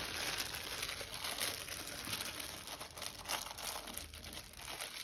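Crinkly plastic-and-foil trading card booster pack wrappers rustling and crackling as a handful of packs is handled and shuffled about.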